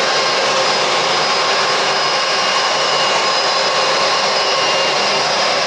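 Jet engines of an Airbus A330-243, its Rolls-Royce Trent 700 turbofans, running steadily: a loud, even jet noise with faint high whining tones over it.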